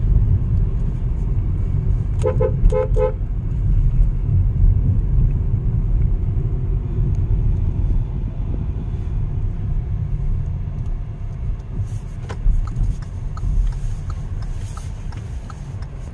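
Steady low rumble of a car's engine and road noise heard from inside the cabin while driving, with a car horn giving about four quick toots about two seconds in.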